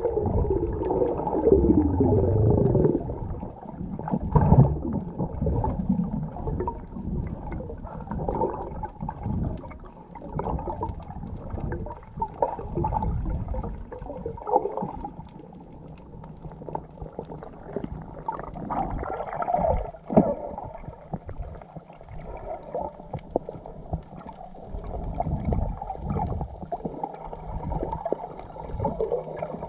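Muffled underwater water noise picked up by a camera held underwater: sloshing and gurgling swishes that rise and fall irregularly. There are a few falling, squeaky gliding tones in the first few seconds and a single knock about twenty seconds in.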